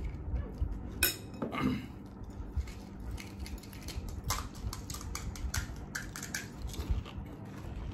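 Spoons and dishes clinking and tapping in irregular, scattered strokes, the clatter of golgappas being filled and eaten from bowls and plates.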